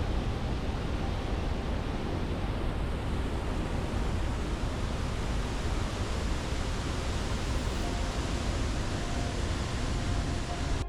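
Steady, even rushing noise of a large waterfall, water falling and crashing without a break.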